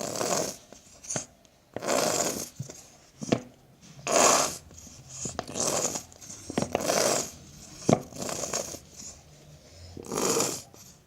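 A nearly empty squeeze bottle of white glue being squeezed over and over, each squeeze a short spluttering rasp of air and glue, roughly once a second, some with a sharp click.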